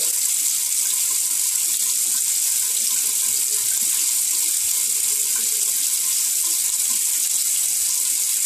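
Bathroom tap running steadily, a constant hiss of water with no change in level.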